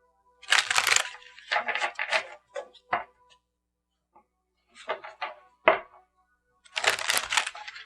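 A deck of oracle cards being shuffled by hand: bursts of crackling card noise in about five separate goes, with short pauses between them.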